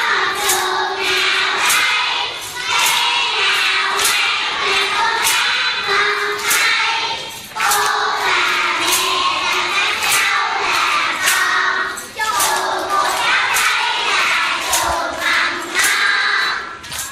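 A group of young children singing together and clapping in time, about one clap a second.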